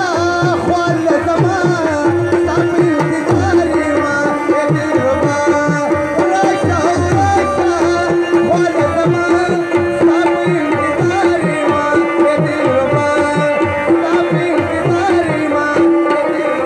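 Live Pashto folk music: fast tabla drumming under a wavering melody line and a steady held drone note.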